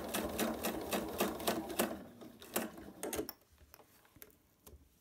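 Pfaff Quilt Expression 4.2 sewing machine stitching at a long stitch length through a folded faux-leather strap, its needle ticking evenly about four times a second. It stops a bit over three seconds in, followed by a few faint clicks as a sewing clip is taken off.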